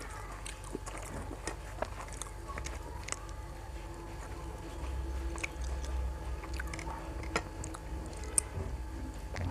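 A person chewing and biting mouthfuls of puri with chole close to the microphone. Irregular wet mouth clicks and smacks are scattered throughout.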